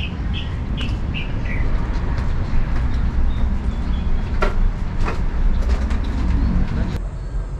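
Outdoor ambience: a steady low rumble, with a bird calling a short run of notes that fall in pitch during the first second and a half, and a few faint clicks.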